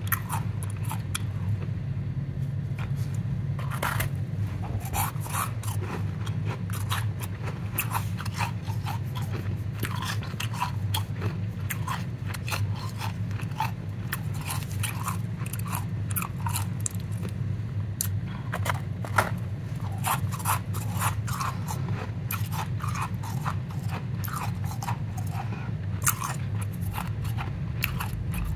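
Powdery ice crunching and crackling in irregular bursts as gloved hands squeeze and crumble a lump of it, over a steady low hum.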